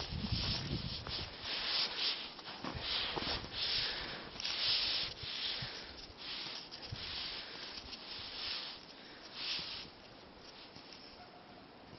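Footsteps crunching through snow at a walking pace, a series of short scrunches that fade out near the end.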